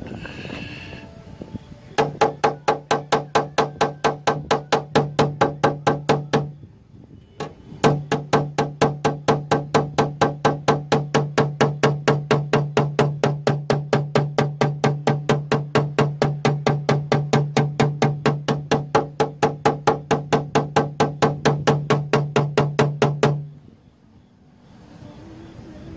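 Rapid, evenly paced tapping with a paintless-dent-repair hammer and knockdown tool on the steel door panel, about three to four taps a second, each with a short ringing tone from the panel. The tapping pauses about six seconds in, resumes a second later, and stops near the end.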